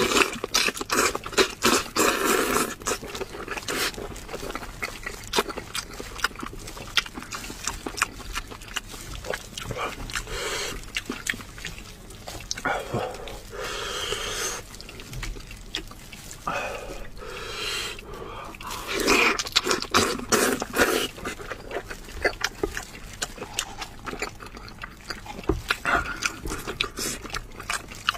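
Close-miked eating: wet chewing, sucking and slurping on spicy braised head meat and ear cartilage, with many small clicks and smacks from the mouth and from the meat being torn apart by hand. The louder bursts come near the start and again about two-thirds through.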